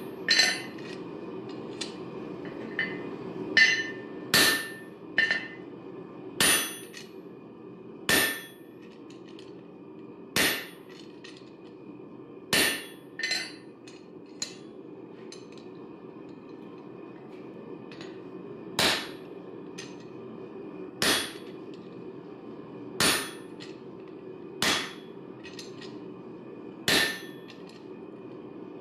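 Hand hammer striking the steel top die of a blacksmith's guillotine tool, forging hot steel held in tongs: single ringing metal-on-metal blows, mostly about two seconds apart, with a pause of about five seconds midway. A steady hum runs underneath.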